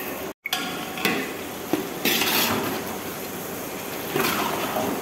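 A metal spatula stirring and scraping tomato masala around a large aluminium pot, with several louder scrapes against the pot over a steady sizzle of the frying mixture.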